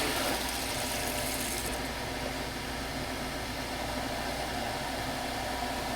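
Dump truck engine running steadily: a low, even hum under a broad, steady hiss.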